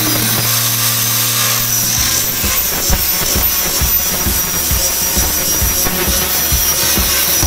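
Cordless angle grinder running steadily, its abrasive disc grinding rust off a steel tube with a constant high whine and a harsh scraping noise.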